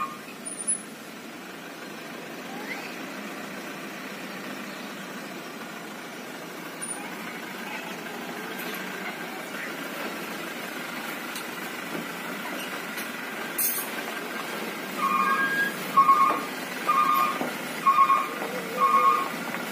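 Dump truck's diesel engine running as the truck drives slowly closer. About three quarters of the way through, an electronic beeper on the truck starts a steady run of identical high beeps, a little more than one a second.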